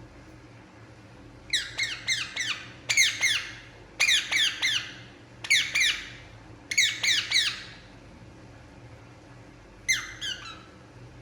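Indian ringneck parakeet calling in rapid runs of short, high, downward-sliding notes, several runs back to back, then a shorter run near the end.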